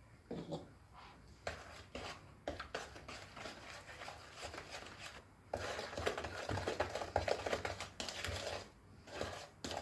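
A cookie batter of creamed butter and sugar with egg and milk being beaten by hand in a bowl: a utensil scraping and clicking against the bowl, sparse at first, then a busier stretch of fast stirring in the second half.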